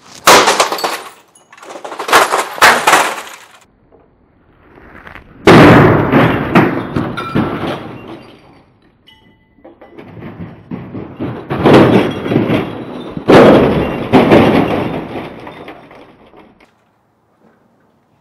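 A cricket bat smashing down on a hard black plastic case on a log stump: about six heavy blows at irregular gaps, each followed by cracking and clattering as the case breaks and shifts.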